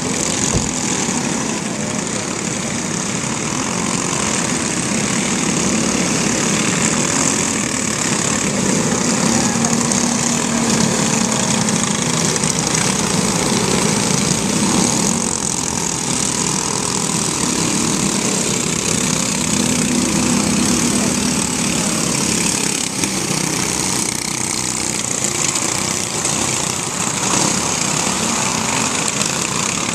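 Several microstock race cars' small engines running hard as the pack laps a short oval, their pitch rising and falling as the cars pass and go round.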